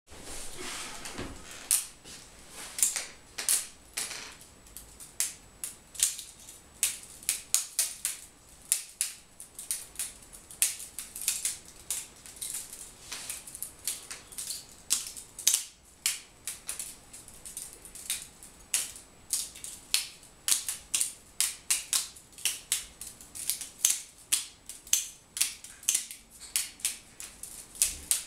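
Böker Plus balisong (butterfly knife) being flipped: a fast, irregular run of metallic clicks and clacks as the handles swing around and knock shut.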